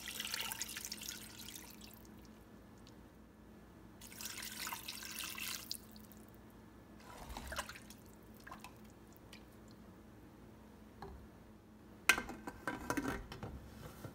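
Water poured from a glass into a stainless steel pressure cooker holding raw beef, in two pours of about two seconds each, the second starting about four seconds in. A few faint knocks of a wooden spoon stirring follow, then metal clatters near the end as the pressure cooker lid goes on.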